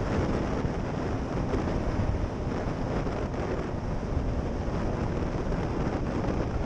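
Wind rushing over the microphone of a motorcycle rider at speed, mixed with engine and road noise, as a steady even roar with no clear engine note.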